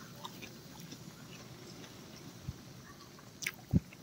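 Crisp potato-and-spinach pakora crunching as it is broken and bitten, with soft chewing, over the faint steady sizzle of pakoras frying in oil. A dull knock near the end is the loudest sound.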